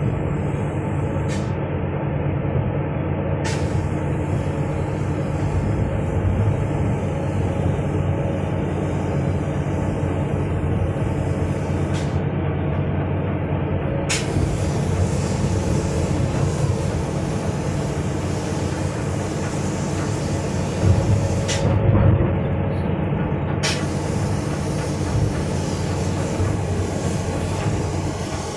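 Kobelco hydraulic excavator's diesel engine running steadily as the machine lifts and carries a heavy pulley block on a sling, with a couple of brief louder knocks about three quarters of the way through.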